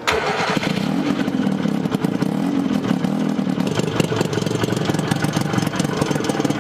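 Small engine of a Hustler 6x6 amphibious ATV running steadily with a fast, even pulse, just back in running order after its carburetor was taken off and cleaned; it is not yet running quite right until it warms up.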